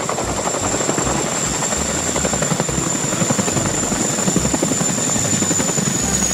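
Boeing CH-47 Chinook tandem-rotor helicopter running with its rotors turning: a rapid, steady rotor beat under a high turbine whine that dips slightly in pitch near the end.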